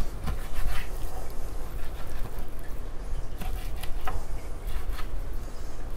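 Chef's knife cutting through raw chicken breast and knocking on a wooden cutting board: a few irregular soft knocks over a steady low hum.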